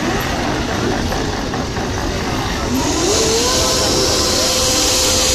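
Many motorcycle engines running and revving together as a dense column of bikes rolls past at low speed. About three seconds in, a tone rises in pitch and then holds steady over the engines.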